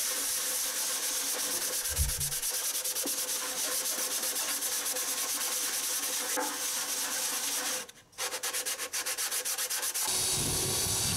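Sandpaper rubbed by hand over a plywood frame in quick, even back-and-forth strokes, with a short pause about eight seconds in. It is sanding the filled nail holes flush, ready for primer.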